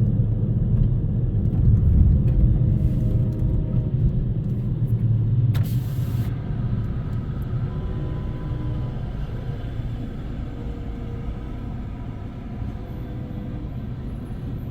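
Loram rail grinder's diesel engines rumbling as the machine gets underway. It is loudest in the first few seconds, with a short hiss at about six seconds, then fades steadily as it moves off.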